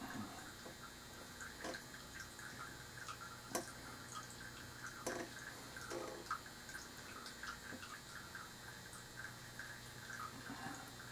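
Faint, scattered small taps and sticky clicks of a paintbrush dabbing paint onto a painting board, over a steady low hum.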